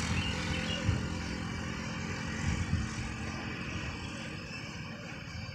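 Diesel engines of heavily laden cargo trucks running at low revs, a steady low rumble that slowly fades.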